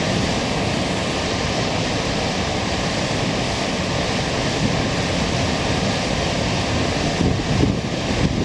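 A standing JR Freight EF210 electric locomotive with its cooling blowers running: a steady rushing drone. From about seven seconds in, uneven low buffeting of wind on the microphone joins it.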